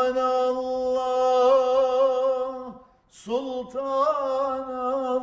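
A man singing a Turkish devotional hymn (ilahi) unaccompanied. He holds one long drawn-out note for nearly three seconds, breaks off briefly for breath, then starts another long held note with a slight ornamented waver.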